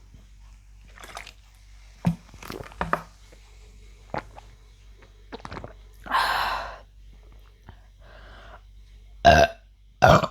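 A woman burping from gulping carbonated Pepsi: two short, loud burps near the end, after a few small clicks and a longer, noisier sound about six seconds in.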